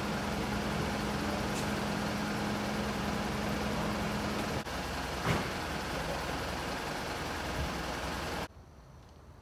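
Minibus engine idling close by: a steady rumble with a hum that stops about halfway through, and a single sharp knock a little after. Near the end the sound cuts off abruptly to a much quieter background.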